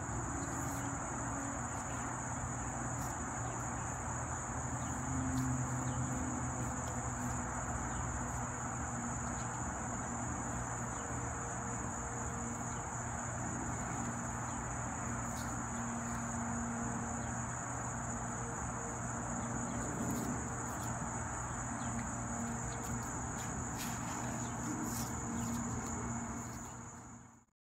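Outdoor summer insect chorus: a steady, unbroken high-pitched shrill, over a low steady hum of distant traffic.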